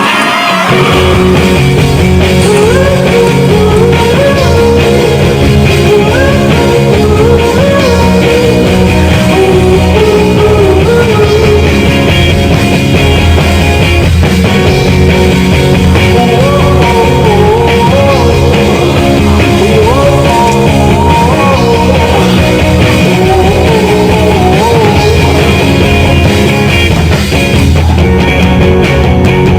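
Loud rock music with a singing voice, playing steadily throughout.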